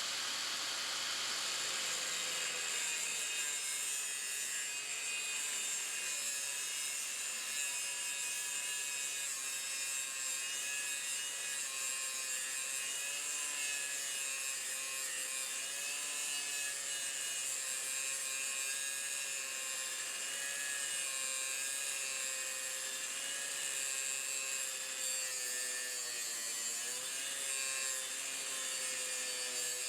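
Corded electric chainsaw running steadily through wood, its motor whine dipping slightly in pitch a few times as the cut loads it.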